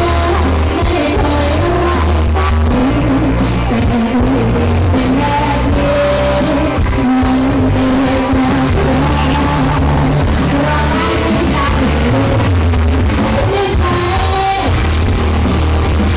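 Live pop song played loud through a stage PA loudspeaker stack: a woman singing lead over a band with a heavy bass line. Recorded right beside the speaker, so the sound is distorted.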